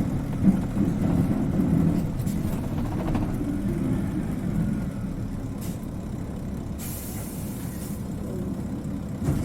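Isuzu Cubic KC-LV380N city bus heard from inside, its engine running with a low sound that slowly grows quieter. About seven seconds in there is a hiss of released air lasting about a second, from the bus's air brake system.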